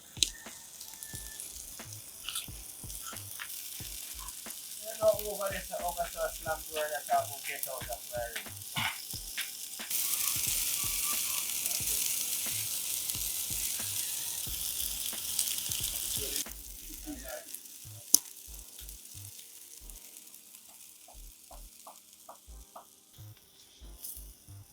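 Rabbit meat sizzling on a grill: a steady crackling hiss that grows much louder for about six seconds in the middle, then drops back, with a few small clicks near the end.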